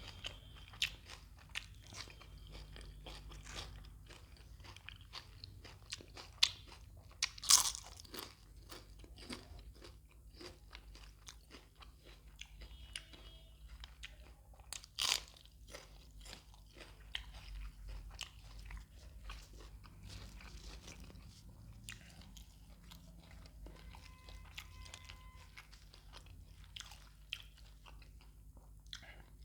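Close-miked eating: many small chewing clicks and wet mouth sounds, with two loud crunchy bites about seven and fifteen seconds in, from a meal of fish curry, roti, green chillies and raw onion.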